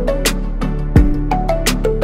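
Background music with a beat of deep drum hits and sharp high strikes under a short repeating melody.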